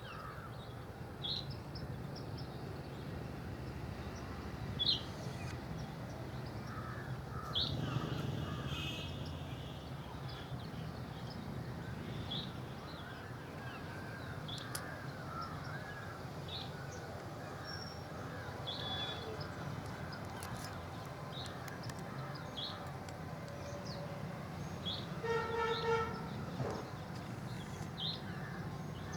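Birds calling outdoors: short high chirps every second or two and a few longer, harsher caws, over a steady low background hum.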